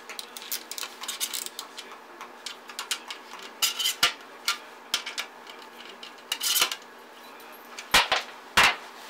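Small screws being tightened into a hinge on a stainless steel strainer: a run of light metallic ticks and clinks, with several louder knocks of metal, the loudest near the end.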